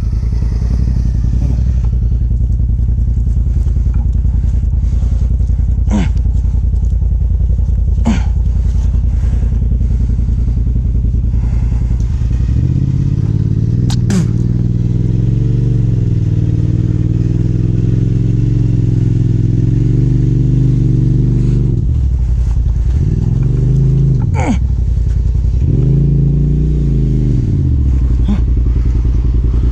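Side-by-side UTV engine idling steadily, with a few sharp clicks. About halfway in, a second, louder motor runs for about nine seconds, then comes twice more in short bursts that rise and fall, as a Polaris RZR is pulled up the hill on its winch cable.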